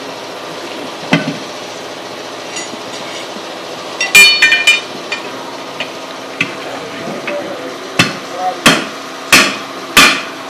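Metal clanking with a ringing tone about four seconds in, then a hammer striking metal about five times, roughly one blow every 0.7 s, over a steady low hum.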